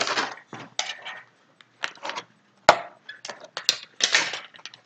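Plastic toy packaging and small plastic accessory pieces being handled: an irregular run of crinkles, rustles and light clicks, with a sharp click a little past halfway through and another about a second later.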